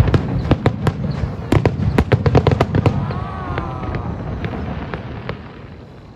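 Fireworks display: rapid sharp bangs and crackles, dense for the first three seconds, then thinning out and dying away by about five seconds in.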